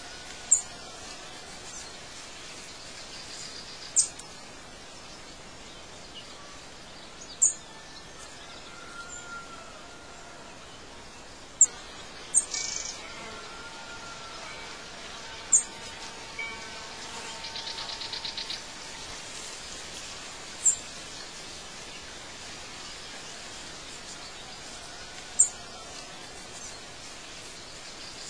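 Birdsong ambience: single sharp, high chirps every few seconds stand out as the loudest sounds, with a rapid pulsing trill about seventeen seconds in and a few faint whistled notes, over a steady background hiss.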